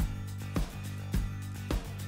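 Background music with a steady beat, a little under two beats a second, over sustained low bass notes.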